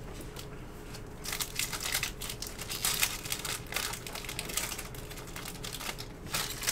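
Foil wrapper of a trading-card pack crinkling as it is torn open and pulled apart, a dense run of crackles starting about a second in and lasting two seconds, then a few shorter crinkles near the end.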